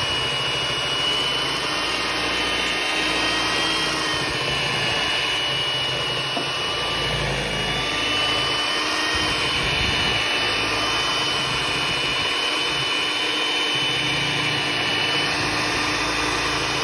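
Pioneer Woman electric hand mixer running steadily, its beaters churning thick cream cheese batter in a bowl, with a high motor whine over the churning. The batter is being beaten until smooth.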